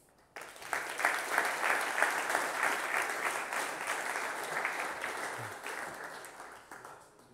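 Audience applauding. The clapping starts about half a second in, holds steady, then fades out near the end.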